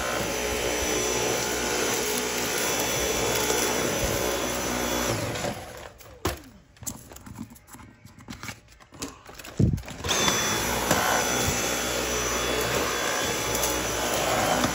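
Dyson V8 cordless stick vacuum running on regular power, a steady motor noise with a high whine, sucking up road salt. About five seconds in it stops for roughly four seconds, with a few clicks and knocks. It starts again with a short rising whine and runs on.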